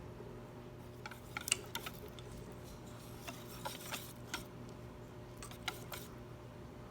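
Faint, irregular light clicks and taps of a utensil against a bowl as ube batter is stirred, over a steady low hum.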